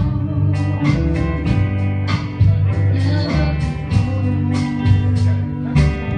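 Guitar playing an instrumental passage: a steady run of plucked notes over held bass notes, with no clear voice on top.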